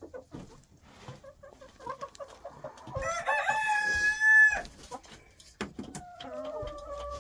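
Chickens clucking in a quick run of short notes, then one loud, long call that rises and then holds steady for about a second and a half. Near the end another long, lower call begins.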